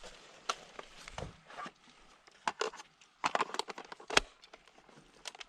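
Airsoft gun being reloaded: scattered clicks and rattles of a magazine being handled and seated, with one sharper knock about four seconds in.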